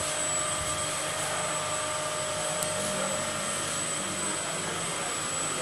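Three-phase induction motor running steadily on a variable frequency drive set to 48 Hz: an even whirring hum with a steady high whine over it.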